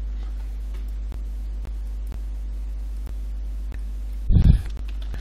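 Steady low electrical hum, with a few faint computer mouse clicks and one short, loud thump about four seconds in.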